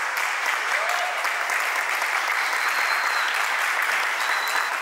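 Group of people applauding: a dense, steady patter of hand claps.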